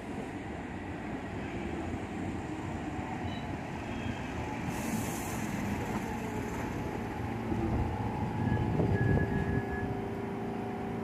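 R46 subway train pulling into the station and braking to a stop: a low rumble of wheels on rail growing louder as the cars come alongside, with a short hiss about five seconds in and a brief high brake squeal near the end, then a steady hum as the train stands.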